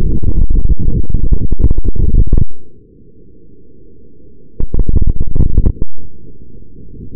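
Onboard audio from a Ripper FPV flying wing in fast low flight: a distorted, clipped rush of wind and motor noise that drops abruptly to a much quieter hiss about two and a half seconds in, comes back loud for about a second around the five-second mark, then falls quiet again near the end.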